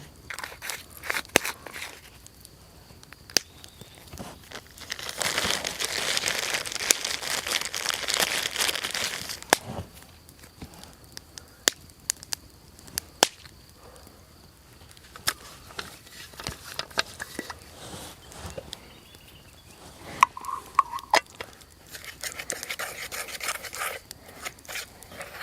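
Campfire being prepared: scattered sharp snaps and knocks of wood and kindling being handled and broken, with a long spell of crinkling rustle about five seconds in and a shorter one near the end.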